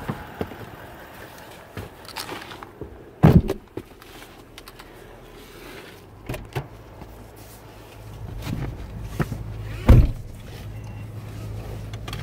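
Someone climbs into a Toyota LandCruiser 200 Series and the driver's door shuts with a loud thump about three seconds in, with small clicks of handling the controls after it. About eight seconds in a steady low hum of the idling engine sets in, and a second loud thump comes about ten seconds in.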